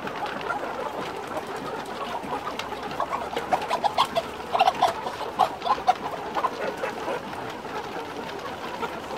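Chickens in a poultry flock clucking over a steady background murmur. Near the middle comes a quick run of short, sharp clucks.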